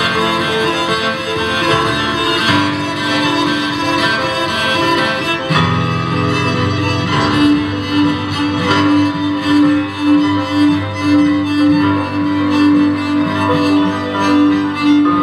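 Live chamber music from a piano trio: grand piano, cello and violin playing together, the bowed strings carrying long notes. From about halfway through, a repeated note pulses steadily under the music.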